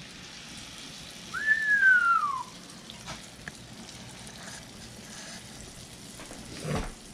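Omelet mixture sizzling faintly in a frying pan over a gas burner. About a second and a half in there is one clear whistle, a single note that rises briefly and then slides down.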